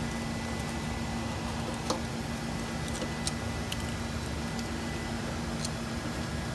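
Steady low hum of running electrical equipment, with a few faint clicks as a battery cable and its ring lug are handled.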